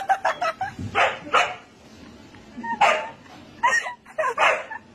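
A dog barking in a run of short barks. A quick cluster comes right at the start, then single barks follow about a second apart.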